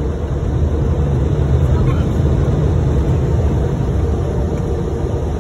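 Steady low rumble of a car's engine and road noise as heard inside the cabin while the car drives.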